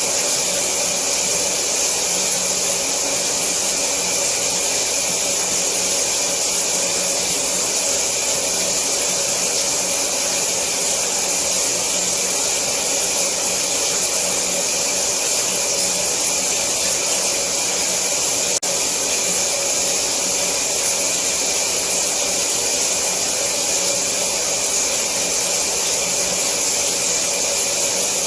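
Shower running: a steady spray of water hissing down, even and unchanging, with one faint click about two-thirds of the way through.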